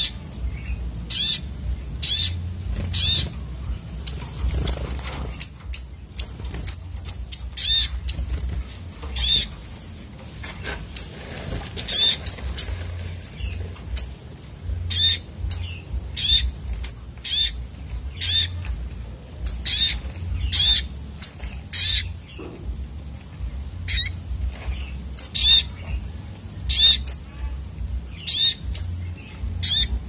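Olive-backed sunbirds calling: short, sharp, high notes repeated every second or so, in quick runs, over a low steady hum.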